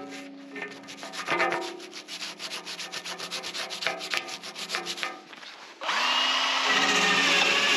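Quick scrubbing strokes, several a second, of a brush scraping dirt off the steel excavator bucket. About six seconds in, a steady, louder rushing noise takes over.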